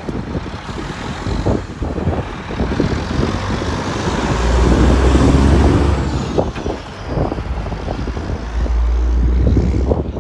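Diesel engine of a long-hood semi truck hauling a dry bulk tank trailer, driving close past and pulling away. It is loudest about four to six seconds in, dips briefly, then rises again as the truck accelerates down the road.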